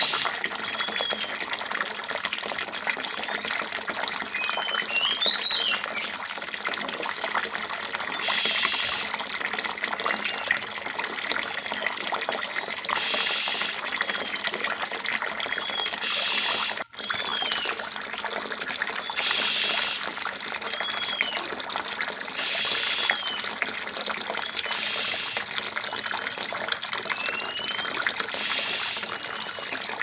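Steady rush of running water, like a tap or small trickle pouring, with short high bird chirps every few seconds. The sound cuts out for an instant about halfway through.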